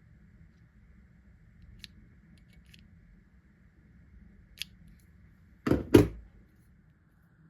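Handling noises from a rifle barrel being moved about: a few light clicks, then two loud, short scrapes close together near the end.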